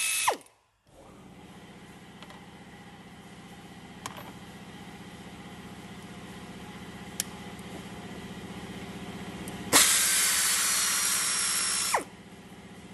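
Pneumatic air ratchet running in bursts of hissing exhaust air while undoing the bolts of an engine bracket. One burst ends just after the start, and a longer one about ten seconds in winds down in pitch as the trigger is released. A steady low hum runs between the bursts.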